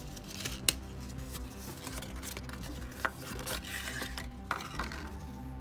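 Cardboard and card stock rubbing and sliding as cards are worked out of a printed cardboard sleeve, with a sharp tap about a second in and another about three seconds in.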